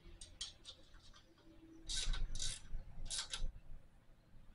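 Hand wrench working a bolt on a car engine: a few light metal clicks, then a handful of louder rasping metal-on-metal strokes as the fastener is tightened.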